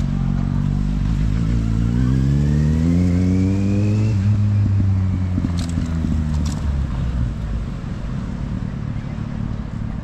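A car engine accelerating past, its pitch rising for a few seconds, then running steadily before fading away.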